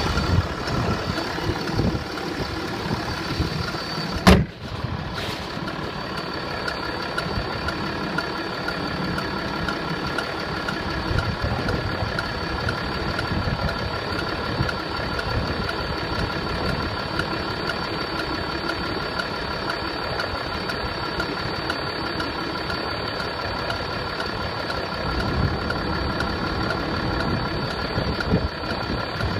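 Engine idling steadily with an unexplained extraneous knock from the motor. A single sharp knock stands out about four seconds in.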